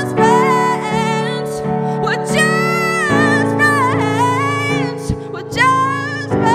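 A woman singing solo, her sung lines bending in pitch, over sustained piano chords she plays on a Yamaha MX88 stage keyboard; the chord changes about three seconds in.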